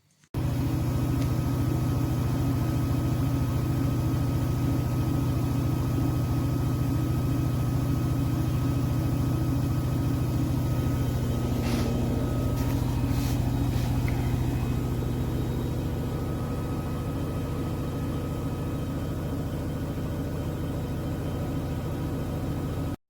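Washing machine running with a loud, steady hum and a fast buzzing rattle. It starts abruptly and holds level throughout.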